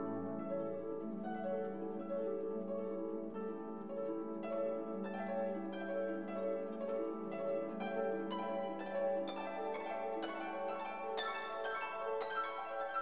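Instrumental background music: plucked notes over a held low note, the plucking growing busier in the second half.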